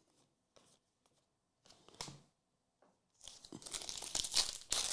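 Trading card pack wrapper being torn open and crinkled by hand: a short tear about two seconds in, then a longer stretch of crackling from about three seconds on.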